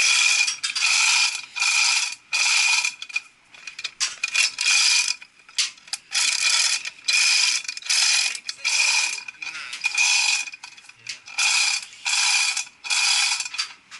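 A hand-operated ratchet worked in quick, repeated strokes, a little more than one a second. Each stroke is a short run of metallic ratcheting with a ringing note, with a few brief pauses between runs.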